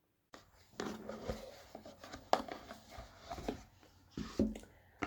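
Gift box being opened and its contents handled: irregular rustling, scraping and clicks of packaging, starting after a short moment of silence.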